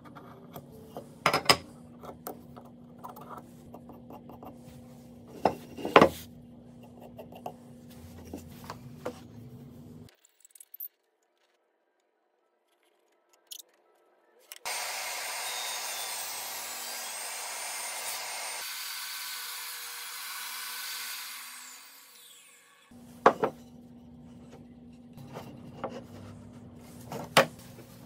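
Pencil and steel square tapping and scratching on wood. After a silent gap, a table saw starts abruptly and runs through a cut in a wooden leg piece for about seven seconds, then winds down with a falling whine. Sharp wooden knocks follow as the slotted pieces are handled and clamped.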